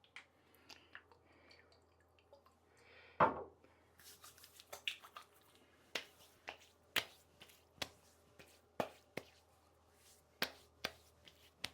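Splash aftershave being patted onto a freshly shaved face with the hands: a series of short, sharp slapping pats about every half second, after one louder sound about three seconds in.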